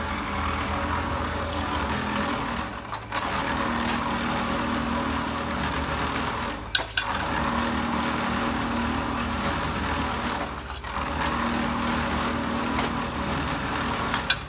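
A motor running steadily, with a low hum that comes and goes and a brief dip about every four seconds.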